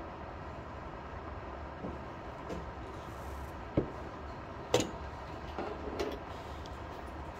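Plastic chess pieces set down on a vinyl board and the button of a LEAP digital chess clock pressed: two sharp clicks about a second apart near the middle, then a few lighter taps as a piece is picked up, over a steady room hum.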